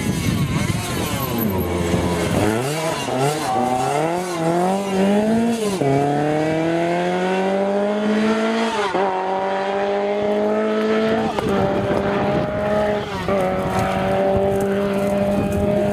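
Rally car engine revving hard with quick throttle blips, then accelerating away at full throttle, its pitch climbing steadily in each gear and dipping briefly at each of three upshifts.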